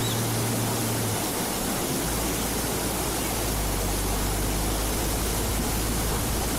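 Steady rush of fast-flowing river water, with a low engine drone underneath that drops to a deeper hum about two seconds in.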